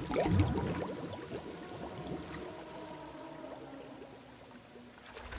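Bathwater lapping and bubbling, dying away gradually, with faint held musical notes underneath.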